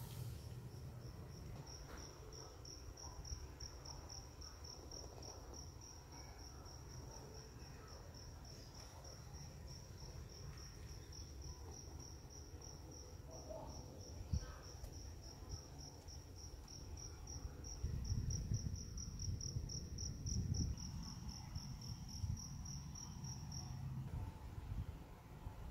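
A cricket chirping in a steady, even string of short high-pitched chirps that stops a little before the end, over a low rumble of handling noise.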